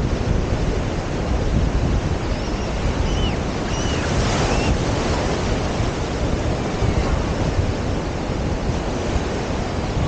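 Ocean surf breaking and washing up a sandy shore, with wind buffeting the microphone. A few faint, distant high-pitched cries come through about three to four seconds in.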